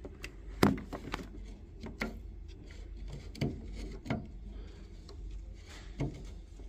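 Scattered light knocks and clicks of metal parts, with some rubbing, as a new brass automatic air vent is screwed in by hand inside a gas boiler; the sharpest knock comes just over half a second in.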